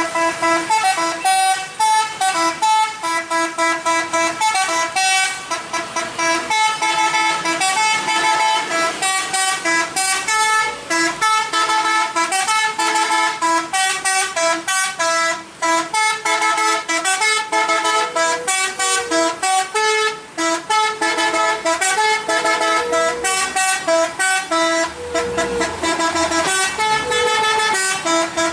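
A truck's musical multi-tone horn (an Indonesian 'telolet'-style horn) playing a tune, its notes changing several times a second with brief gaps throughout.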